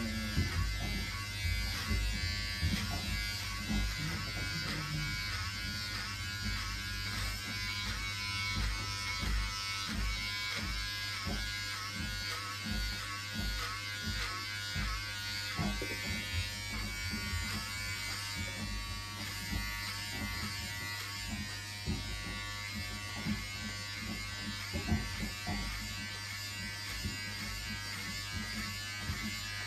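Corded electric hair clippers buzzing steadily as they cut a boy's hair, with occasional low bumps.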